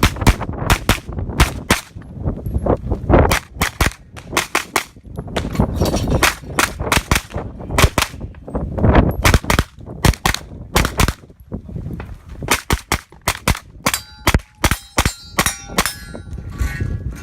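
JP Rifles GMR-15 pistol-caliber carbine firing in quick pairs and short strings, with brief pauses between groups of shots. Near the end, shots strike steel targets that ring.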